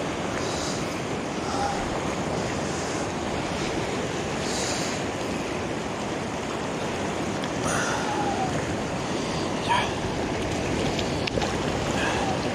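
Sea surf washing steadily over shoreline rocks, with some wind on the microphone.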